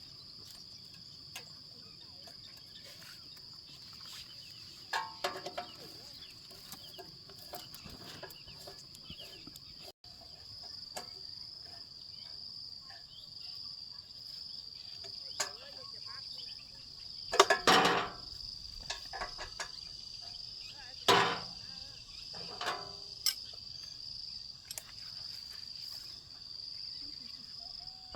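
Scattered sharp knocks and clatters of metal being handled, loudest in a cluster past the middle, over a steady high-pitched shrill drone.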